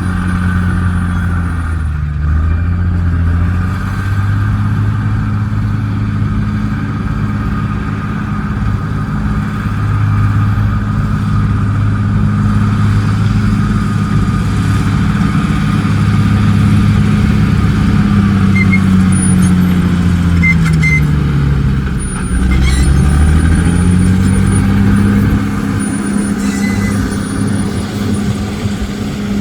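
Dump truck's heavy diesel engine running steadily under load. Its revs sag briefly about two seconds in, then wind down slowly and pick up again about three-quarters of the way through, with a short hiss of air as they bottom out.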